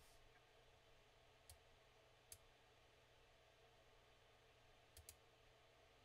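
Near silence: faint room tone with a few soft clicks, one about a second and a half in, another a little after two seconds, and a quick pair near the end.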